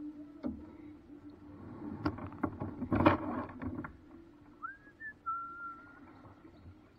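A cluster of hollow knocks and clatter, like a paddle striking a boat, between about two and four seconds in. Then a short rising whistle and a longer held whistle. A steady low hum runs underneath.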